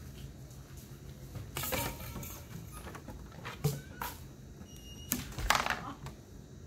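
Several sharp knocks and scrapes on wood as a Siberian husky clambers onto a wooden picnic table, its claws scratching on the boards; the loudest scrape comes late.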